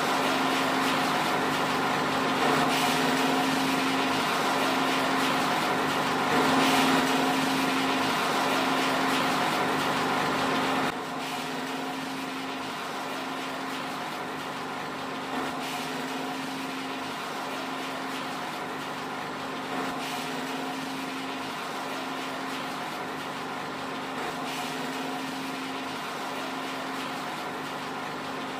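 Small electric flat-die feed pellet mill running under load, extruding pellets: a steady machine hum with a constant low tone that pulses slightly. The sound steps down in level about eleven seconds in and then carries on evenly.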